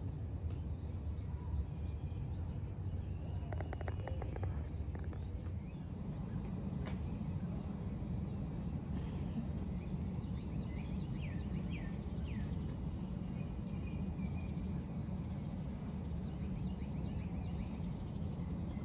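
Outdoor ambience: a steady low rumble with small birds chirping in short calls, most of them in the middle and near the end. A quick run of ticks comes about four seconds in.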